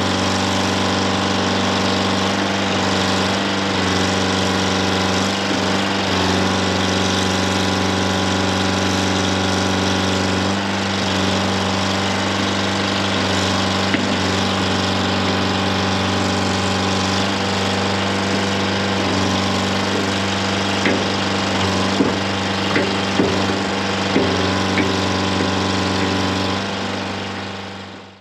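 Detroit Diesel 4-71 two-stroke diesel of a Dynahoe 200-4 backhoe running steadily while the backhoe digs, with a few short knocks near the end. The sound fades out at the very end.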